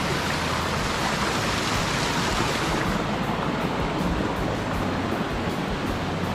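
Steady rushing of a hill stream's flowing water, its highest hiss thinning out about three seconds in.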